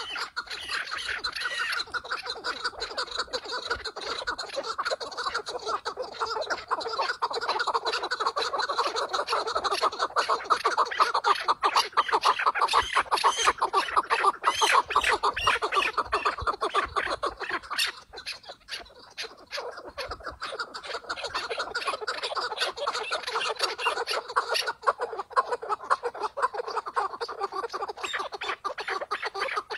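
Chukar partridge calling: a rapid, continuous run of chuckling notes, several a second. It thins out briefly about two-thirds of the way through, then picks up again.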